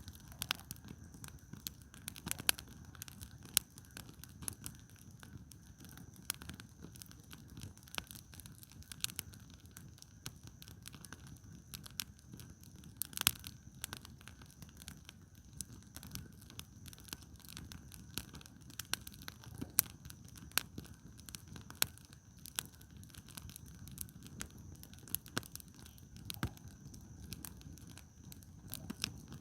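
Wood campfire burning, with irregular sharp crackles and pops of the firewood over a low steady rumble.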